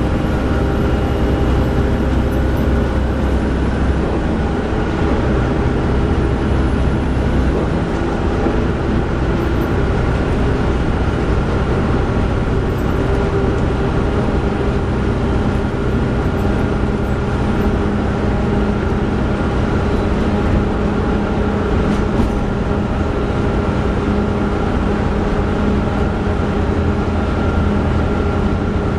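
Volvo B7TL double-decker bus with a Wright Eclipse Gemini body, heard from the upper deck while under way: a steady diesel drone and road noise, with a slight cooling-fan whine running through it as several steady tones. A deeper tone joins about halfway through.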